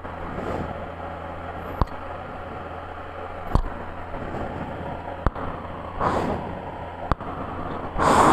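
Motorcycle running along a rough off-road track, a steady engine hum under a noisy wash, with four sharp knocks spaced evenly about every second and a half to two seconds.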